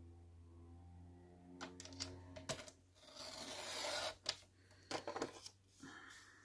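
Sliding-blade paper trimmer cutting a sheet of thin paper: a rising rasping swish about three seconds in as the carriage runs along the rail, then a few light clicks and taps as the paper is handled.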